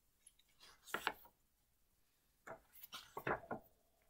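Faint rustling and light handling noises of board game cards and cardboard pieces being moved about, in two short bouts: one about a second in and a longer one around three seconds in.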